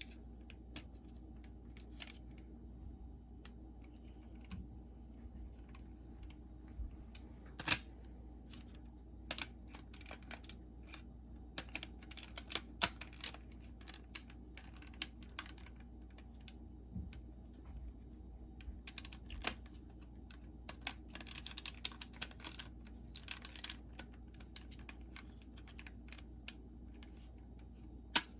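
Scattered small plastic clicks and taps from handling a Sony WM-FX28 cassette Walkman that won't play after a belt replacement, with a busier run of clicks in the second half and single sharper clicks about eight seconds in and just before the end.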